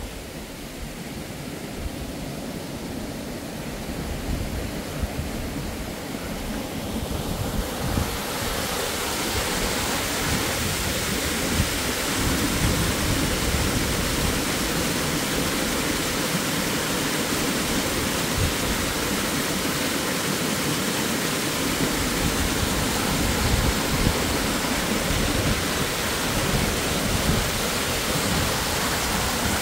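Steady rush of a waterfall, growing louder over the first eight seconds, then holding steady.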